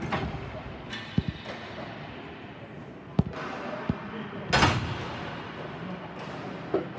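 Ball hockey game play: a few sharp knocks of sticks and ball, with one louder crash about four and a half seconds in.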